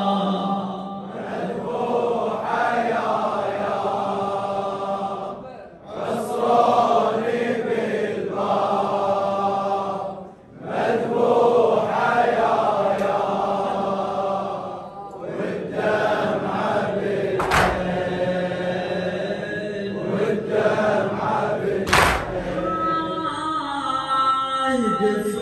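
A large crowd of male mourners chanting a Shia lament (latmiyya) refrain in unison, in long sung phrases with short pauses between them. A few sharp slaps of hands striking chests cut through in the second half, and near the end the reciter's solo voice comes in.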